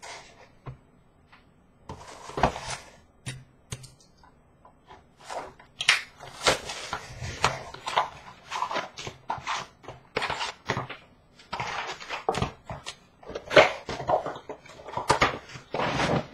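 A trading-card hobby box being opened and its wrapped card packs handled: irregular crackling and rustling of cardboard and pack wrappers, sparse at first and busy through the second half.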